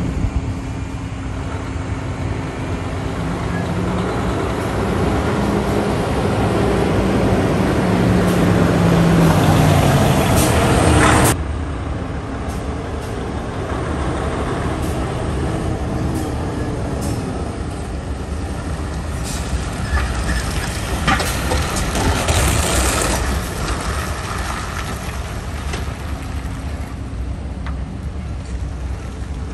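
Large diesel truck running as it drives up and turns in, growing louder until the sound cuts off abruptly about eleven seconds in. A short burst of air-brake hiss comes about two-thirds of the way through.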